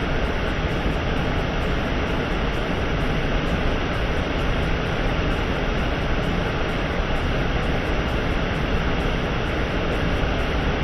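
Waterfall rushing close by: a loud, steady, even noise of falling water with no breaks.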